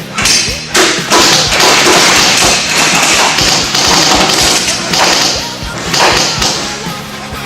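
Loud heavy rock music with pounding drum hits and a dense distorted wash.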